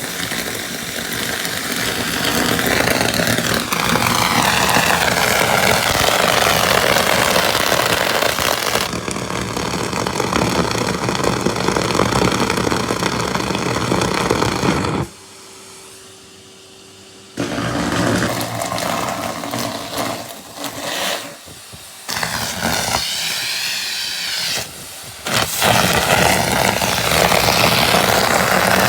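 Numatic Henry vacuum cleaner running loud and struggling as it sucks in pieces of rubber glove, its pitch wavering and warbling. The sound drops away sharply for about two seconds midway, then breaks up several times before running loud again.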